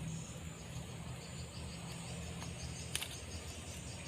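Steady high chorus of insects chirring, over a low steady hum, with a single sharp click about three seconds in.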